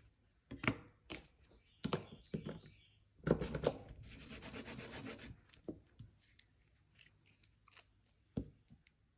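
A few light knocks of small tools being handled on a desk mat, then about a second and a half of rubbing as a cotton pad wipes a metal nail-stamping plate clean. A few faint clicks follow as a nail polish bottle is picked up and opened.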